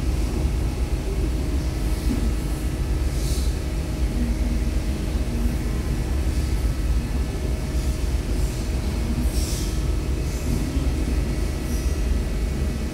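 Steady low rumble and drone of a large vehicle in motion, with a few brief, faint high hissing swells.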